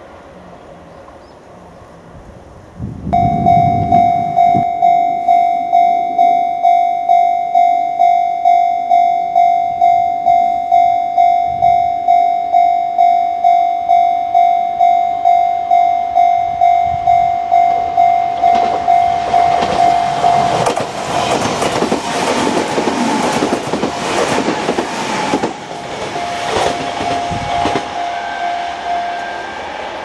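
Japanese level-crossing alarm bell starts about three seconds in, ringing in even strikes about twice a second. About eighteen seconds in a Kintetsu electric train passes over the crossing, a loud rush of wheels on rails with quick clacks over the rail joints, and the bell keeps ringing under it until just before the end.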